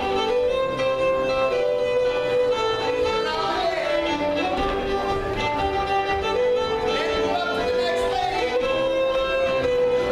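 Live band music for a contra dance: a fiddle plays a lively melody, with steady accompaniment underneath.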